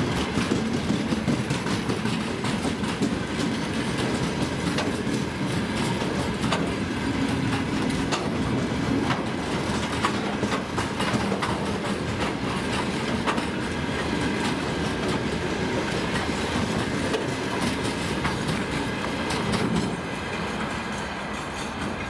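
Freight train wagons rolling past at speed in a steady rumble, with the wheels clicking and clattering over the rail joints. The sound drops a little near the end.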